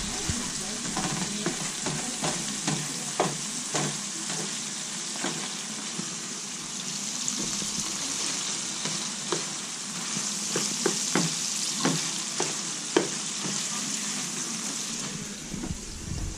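Ground meat and onions sizzling steadily in a frying pan, with irregular scrapes and taps as a spatula stirs them.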